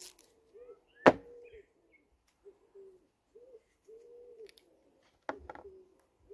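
A sharp knock about a second in and a smaller one after about five seconds, over a bird's soft, low hooting calls repeated every second or so.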